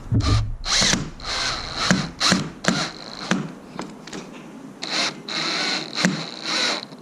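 Power drill driving a screw in several trigger bursts, its motor whine running longest twice, with clicks in between.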